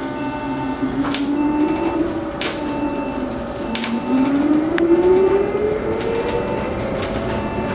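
2015 Proterra Catalyst battery-electric bus accelerating, heard from inside. The electric drive motor's whine climbs in pitch, dips about four seconds in, then climbs steadily again as the bus picks up speed. Sharp clicks come about every second and a quarter.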